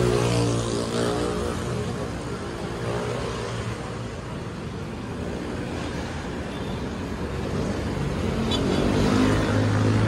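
Road traffic on a busy city street: cars and motorcycles passing close by. One engine fades away in the first second and another comes up louder near the end.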